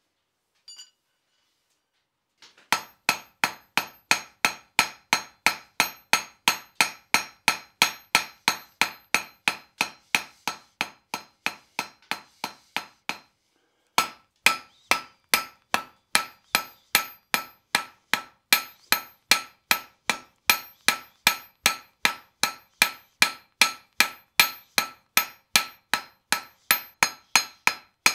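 Hand hammer striking a red-hot iron bar on a Fontanini anvil, forging a nail, at a steady pace of about three blows a second, each blow ringing from the steel. The blows start a couple of seconds in, stop briefly about halfway, then resume at the same pace.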